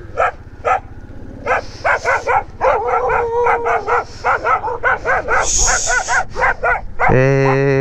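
Dog barking over and over in short yaps, several a second in places, with a longer drawn-out cry near the end.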